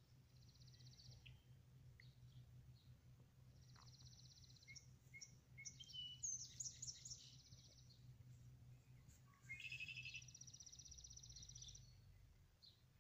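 Faint birdsong: several quick buzzy trills and a run of high chirps about six seconds in, over a low steady hum.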